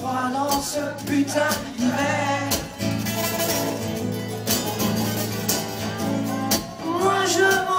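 Live rock band playing a song with two strummed acoustic guitars and drums; a man's singing voice comes in during the first couple of seconds and again near the end.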